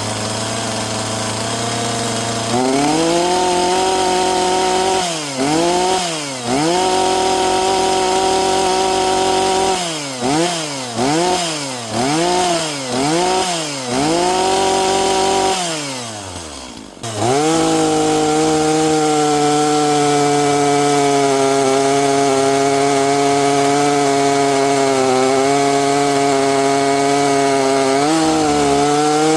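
Echo two-stroke chainsaw warming up: it idles, then is revved and held at high throttle several times with quick throttle blips in between. It drops back to idle about 16 seconds in, then revs up again and runs steadily under load, cutting into maple with a freshly sharpened chain.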